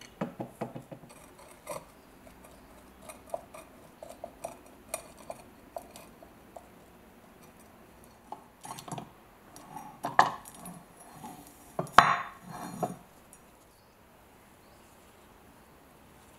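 Bezel ring of an old ship's compass being twisted and worked loose from its housing by hand: scattered small clicks and scrapes, then a run of louder clacks and grinding scrapes about two-thirds of the way through, with one sharp clack the loudest.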